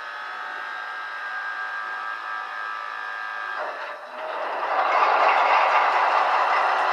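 The sound decoder of a Piko H0-scale V 211 diesel locomotive model plays its engine start-up sound through the model's small loudspeaker. First come a few steady tones. After a short break about four seconds in, a louder, even diesel engine noise runs on.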